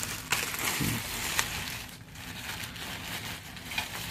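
Clear plastic bag and bubble wrap rustling and crinkling as they are handled around a heavy wrapped object, with a few sharp crackles in the first second or so.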